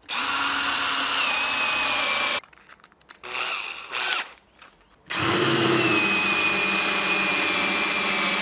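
Cordless drill boring counterbored screw holes through a timber batten: it runs for about two seconds, stops for a couple of seconds with a few light knocks, then runs again from about halfway through. Its motor whine sags slightly in pitch as the bit bites into the wood.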